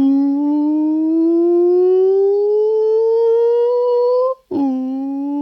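A person's voice holding a sustained vocal tone that glides slowly upward by about an octave. About four seconds in it breaks briefly for a breath, then a new tone starts low with a quick scoop up and rises slowly again.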